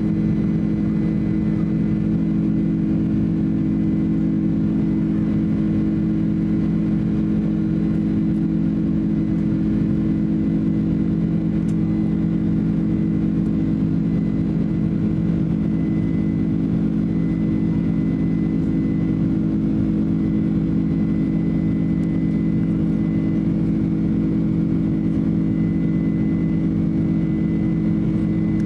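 Cabin noise inside a Boeing 767-300 climbing after takeoff: the steady drone of its General Electric CF6 turbofan engines and rushing air, with a deep hum and a faint high whine that grows a little stronger about halfway through.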